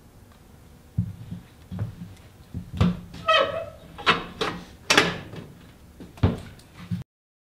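Knocks and clanks of a metal wood stove's door and parts being handled while the fire is lit, with a short squeaky metallic scrape about three seconds in. The sound cuts off abruptly near the end.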